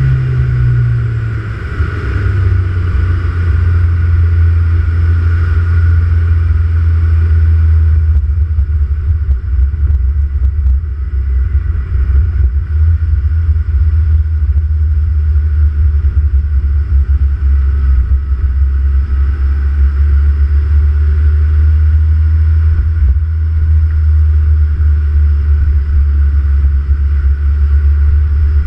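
Turbocharged car engine with an open Pipercross air intake, heard from the front, settling within the first second or two to a steady, low-pitched idle and holding it.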